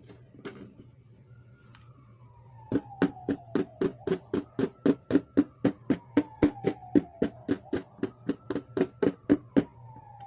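A rapid, even run of sharp clicks, about four a second, starting a few seconds in and stopping shortly before the end. Behind them a siren-like tone slowly wails down and back up.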